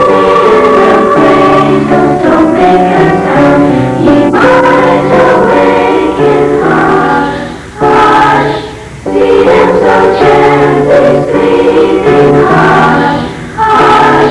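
A school choir singing a Christmas song, in sustained phrases with brief breaks between them.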